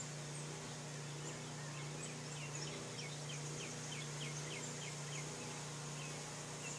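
A bird singing a run of quick, down-slurred notes, about four a second, for a few seconds in the middle, with faint high chirps around it. Under it runs a steady low hum.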